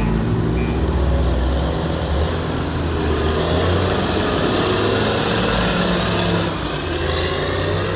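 Heavy road-construction vehicle engine running steadily, with a broad rush of machine noise that swells about three seconds in and eases a little near the end.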